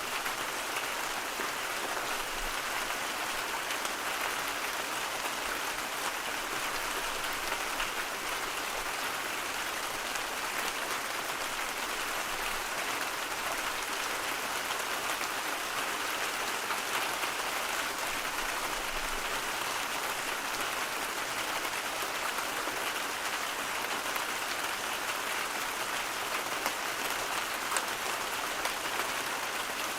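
Steady, unchanging white-noise hiss that sounds like rain, with faint scattered ticks in it.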